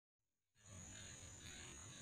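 Faint outdoor ambience that fades in about half a second in: a steady high-pitched insect drone over a low rumble.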